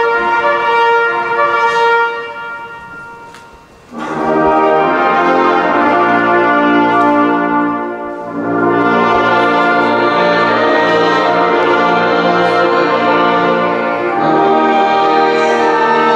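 Brass band playing slow, long-held chords. One chord rings out and fades over the first few seconds, then the full band comes back in about four seconds in with a fuller, deeper sound and carries on in sustained chords.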